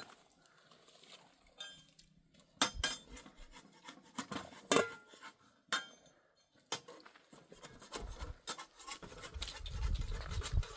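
Scattered sharp clinks and knocks of hard objects being handled, a few ringing briefly. About eight seconds in, a low rumbling rub sets in and grows.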